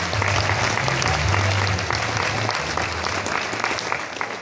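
A seated audience applauding, the clapping thinning out toward the end.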